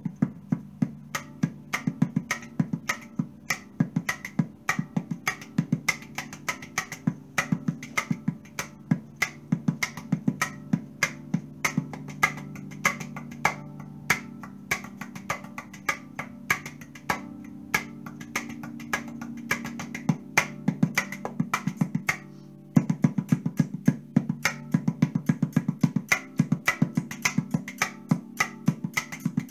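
A 13-note custom Pulsar tonguepan (steel tongue drum) played on its back side with the hands in a fast hand-drumming rhythm: quick sharp taps over low notes that ring on underneath. The drumming stops for a moment about two-thirds of the way through, then carries on.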